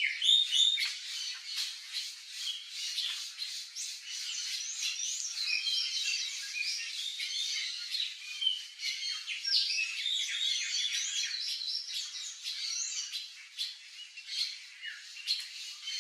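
Turquoise-fronted parrots (Amazona aestiva) squawking: a dense, unbroken chatter of many overlapping short calls.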